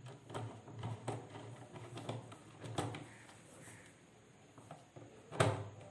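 Screwdriver turning the terminal screw of a miniature circuit breaker to clamp a wire in a plastic distribution box: scattered small clicks and knocks, the loudest about five and a half seconds in.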